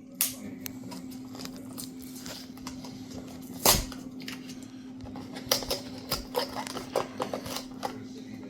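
Hands working at a mystery plush's packaging: irregular crinkles and clicks, with one louder crack or thud about three and a half seconds in and a quicker run of clicks near the end. A steady low hum runs underneath.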